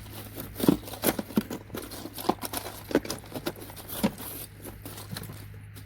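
Loose gold-plated pins, connectors and electronic scrap clattering and crunching as they are stirred and pushed around in a container with a piece of circuit board, a quick irregular run of clicks and knocks.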